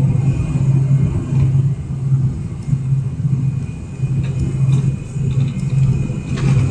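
Cabin noise inside a Boeing 747-400: a steady low engine and airflow rumble whose drone swells and fades about twice a second.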